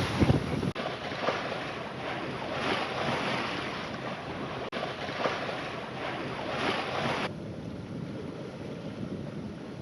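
Water washing along a sailing yacht's hull, surging about every second and a half, with wind on the microphone at the start. The sound drops abruptly to a quieter, duller hiss near the end.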